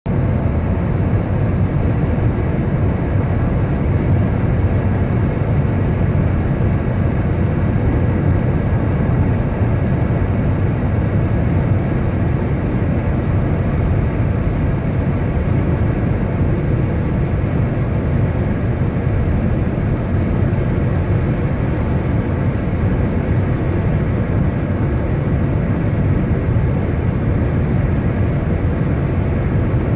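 Steady road noise inside a vehicle cruising on a highway: a low, even rumble of tyres, engine and wind heard through the cabin.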